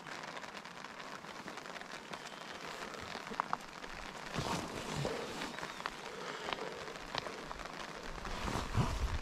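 Steady rain falling and pattering on nearby surfaces, with a few single louder drops ticking now and then and some soft low knocks in the second half.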